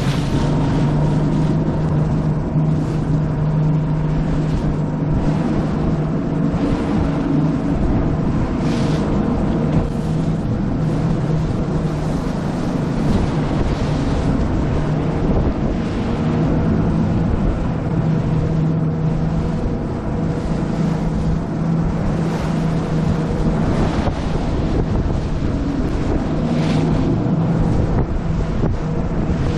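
A 2018 Nitro Z20 bass boat runs at steady speed through choppy lake waves, its outboard motor droning evenly. Wind noise on the microphone and water rushing and slapping at the hull run throughout, with spray splashes now and then.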